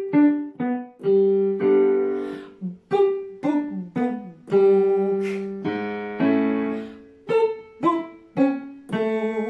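Keyboard in a piano sound playing a descending major arpeggio again and again, as short falling notes each ending on a held note. A woman sings along on the "book" syllable with lips tightly closed and cheeks puffed, a vocal projection exercise.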